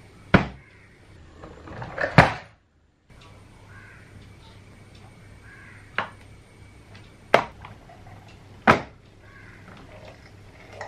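Homemade PVC cantilever toolbox with gear-linked arms being opened and closed: the plastic trays and linkage clack shut and open in about five sharp knocks, spaced a second or more apart, with a brief rubbing slide just before the second.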